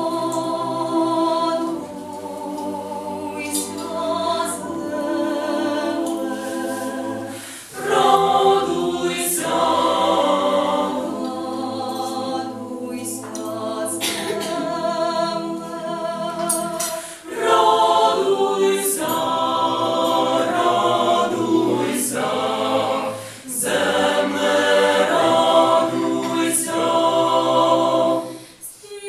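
Mixed choir of women's and men's voices singing a cappella in harmony, with sustained chords. The phrases break off briefly three times, about a third of the way in, past halfway and about four-fifths through.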